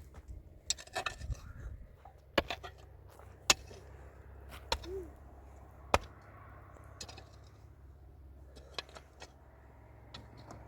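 Irregular sharp knocks and taps of hard objects, about ten of them and some in quick pairs, with light scraping between them.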